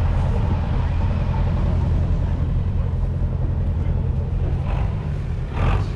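Ford 4600's 3.3-litre three-cylinder diesel engine running steadily, without revving. A short burst of noise is heard near the end.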